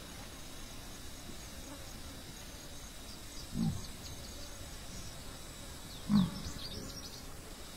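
Oryx (gemsbok) giving two short, low grunts about two and a half seconds apart, the second louder. Faint bird chirps sound behind them.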